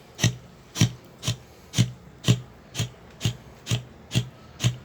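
A puppy eating soft food from a bowl: short, even smacks about twice a second.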